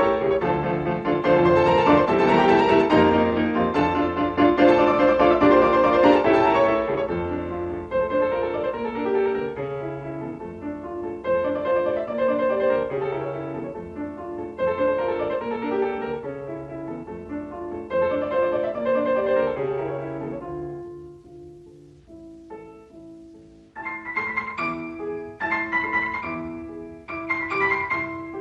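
Solo piano playing an instrumental passage, full and loud at first, thinning to a few quiet notes a little past the middle, then louder chords striking again near the end.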